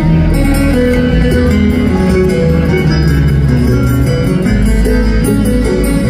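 Live bluegrass band playing an instrumental passage through an arena PA: acoustic guitars picking fast notes over upright bass, with fiddle.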